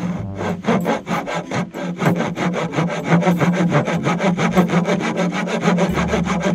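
A saw cutting through wood with quick, even back-and-forth strokes, about six a second.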